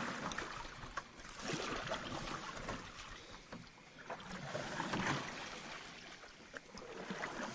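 Canoe paddle strokes swishing and splashing in shallow floodwater, swelling and fading several times, with a few light knocks.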